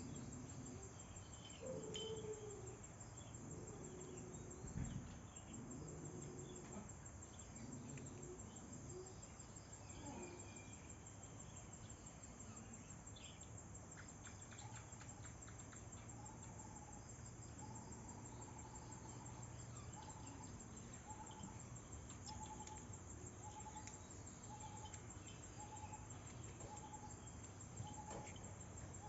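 Insects, such as crickets, chirring steadily and high-pitched, with a short call note repeating about once a second from about halfway in. A few soft knocks and rustles sound early on.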